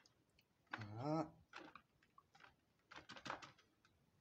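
Wet straining cloth full of steeped thyme squeezed by hand over a pot of syrup: faint squelches and drips, with a cluster of quick wet clicks about three seconds in. A short hummed vocal sound just under a second in.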